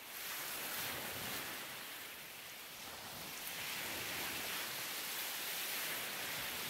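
Steady rushing of sea waves that swells and eases slightly in level.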